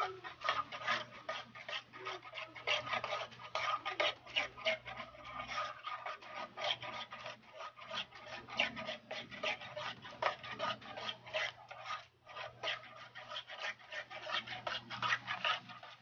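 Cake batter of condensed milk and eggs being beaten by hand in a black pot, the metal utensil scraping and clicking against the pot's side in rapid, regular strokes several times a second, with a brief pause about twelve seconds in.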